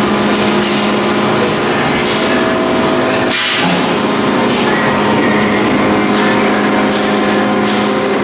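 Press brake running: a steady machine hum with hiss as the ram and top tool close on the die and open again, with a short burst of hiss about three and a half seconds in.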